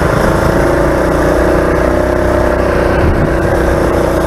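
DuroMax 208cc single-cylinder engine on a homemade four-wheeler running at high, steady speed under load while the quad is ridden.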